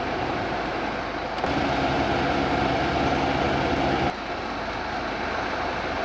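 BMW 520d F10 cabin blower fan running at its highest setting, a steady rush of air through the dash vents. A low, steady drone joins in about a second and a half in and cuts off abruptly at about four seconds.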